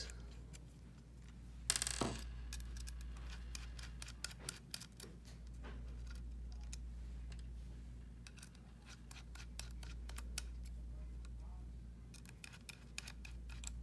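Small screwdriver turning the bracket screws out of a plastic thruster mount: faint irregular clicks and ticks of the screwdriver and screws, with one louder brief sound about two seconds in, over a steady low hum.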